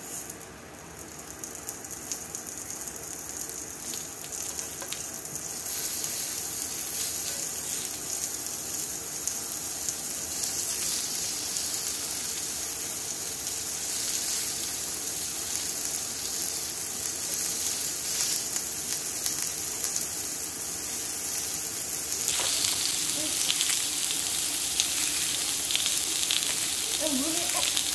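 Food frying in a hot pan: a steady sizzle with crackling, getting louder about six seconds in and again a little past twenty seconds.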